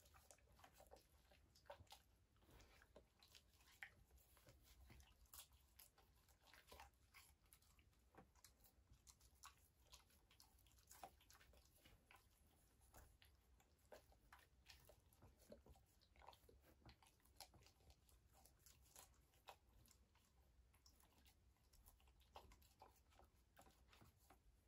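Two German Shepherds, an adult and a puppy, chewing pieces of raw meat: faint, irregular wet smacks and clicks of jaws and tongues.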